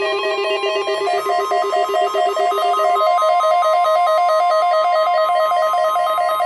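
Music with a fast, evenly repeating pattern of plucked-sounding notes; from about a second in a steady high tone is held beneath it, and a lower note drops out about halfway through.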